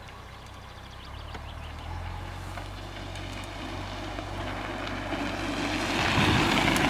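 Two mountain bikes rolling over a gravel track, the tyre crunch growing steadily louder as they approach and pass close near the end.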